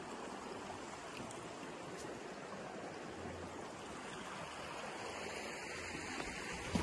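Shallow, low-water river flowing over rocks: a steady rush of running water, with one short low thump near the end.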